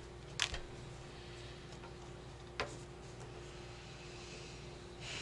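Playing cards being laid down on a table during play: two short, sharp clicks a couple of seconds apart, over a faint steady hum, with a soft rustle near the end.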